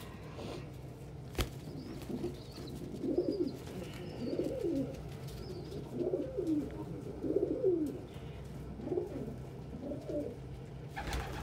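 Domestic pigeons cooing: a run of short coos, roughly one a second, with a single sharp click about a second and a half in.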